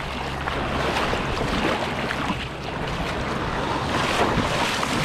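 Small waves of the sea washing in over the rocks and pebbles of the shoreline, a steady rush of surf that swells slightly in the first second.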